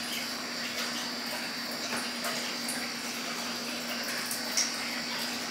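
Electric fan running steadily: an even airy hiss with a constant low hum.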